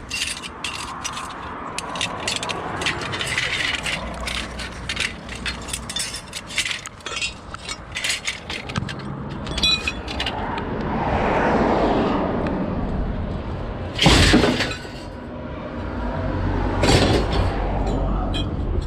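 Scrap being rummaged through and handled: a rapid run of clinks and clatters of metal and other hard pieces knocking together, then a loud crash about three-quarters of the way through and another clattering knock near the end.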